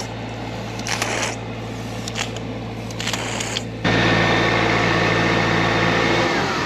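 Doosan tow-behind air compressor's engine running steadily, heard louder close up from about four seconds in; near the end it is shut off and the engine winds down, its hum dropping in pitch and fading.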